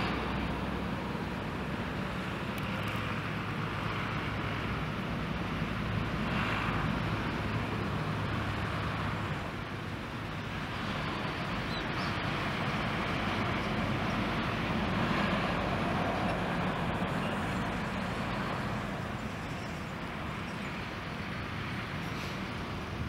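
Boeing 747's four jet engines running with a steady rush as the airliner rolls out on the runway after touchdown, swelling and easing a couple of times.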